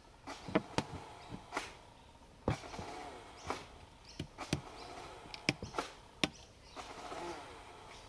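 Sharp clicks and knocks of a plastic hose and a 3D-printed plastic auger being handled and fitted together, a dozen or so irregular taps. Behind them a faint pitched sound rises and falls about every two seconds.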